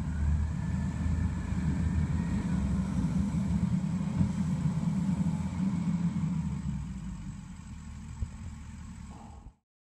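Mustang MTL325 compact track loader's diesel engine running as the machine moves over dirt, a low steady rumble with a thin whine above it during the first couple of seconds. The engine sound eases off after about six seconds and cuts off abruptly near the end.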